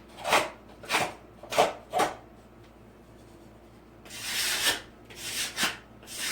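A hand tool scraping over a textured wall, knocking down bumps in the texture: four quick strokes, a longer scrape about four seconds in, then two more short strokes.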